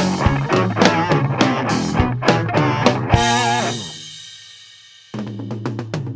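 Instrumental rock band playing guitar, bass and drum kit. About three seconds in the band stops and a chord rings out and fades, then the music comes back in suddenly about five seconds in, quieter at first.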